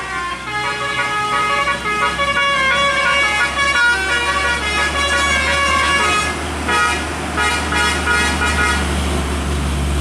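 Bus telolet horn playing a tune of stepped notes, several pitches sounding together, stopping about nine seconds in. A bus engine runs underneath and grows louder near the end.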